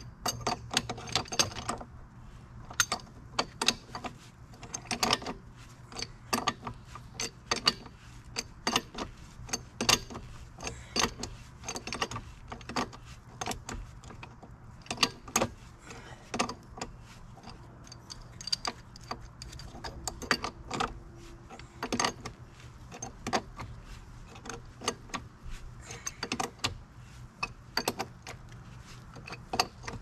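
Irregular metallic clicks and clinks, many in quick runs, from hand tools working at a Cat 247 skid steer's track undercarriage as the track is being tightened.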